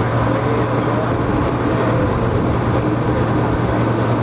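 A 1920s CPH 'Tin Hare' railmotor's diesel engine running steadily with a low drone as the railcar travels along the line, under a rush of wind and running noise at the open window.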